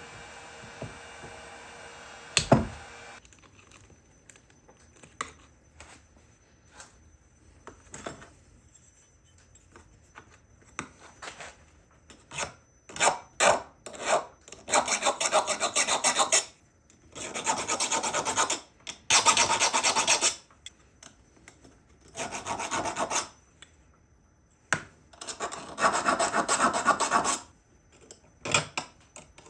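Hand rubbing or rasping strokes on a pocket knife being finished: a run of long back-and-forth strokes, each lasting a second or two, beginning about halfway through after some scattered clicks and a sharp knock. A steady background hum cuts off about three seconds in.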